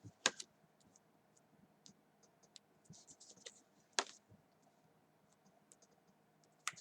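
Scattered small clicks and light scratching in a quiet room, with sharper clicks about a quarter second in, about four seconds in, and near the end.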